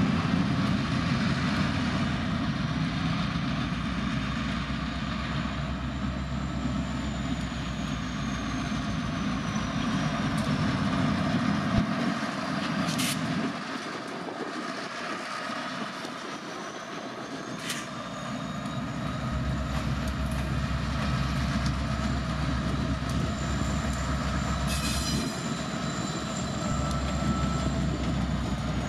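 Diesel locomotives of a freight train running past with a heavy low rumble that drops away about halfway through and builds again a few seconds later. A thin high squeal from the wheels drifts slowly in pitch over it, with a few sharp clicks.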